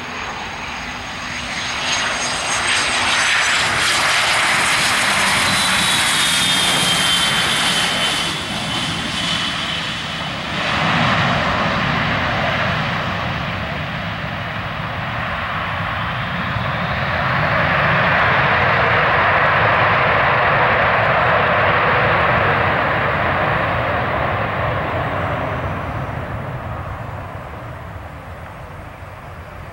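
Cessna 750 Citation X business jet landing, its two Rolls-Royce AE 3007 turbofans whining with high tones that slide downward as it passes low over the runway. The jet noise dips, swells again during the rollout down the runway, then fades near the end.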